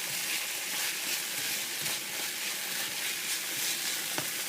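Garlic and ají panca sizzling in hot oil in a pan, a steady frying hiss, with a light click of a stirring utensil about four seconds in.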